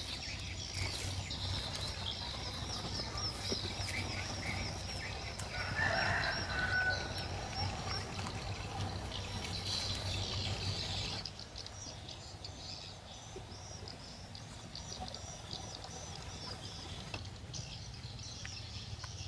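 Birds calling, with rapid repeated high chirps and one louder, longer call about six seconds in. The sound drops quieter about eleven seconds in.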